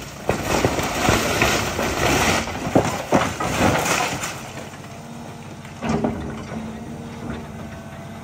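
Wooden house roof and wall being torn apart by an excavator bucket: dense cracking and splintering of timber with debris falling for the first four seconds or so, then quieter, with one more crack about six seconds in. The John Deere excavator's diesel engine runs steadily underneath.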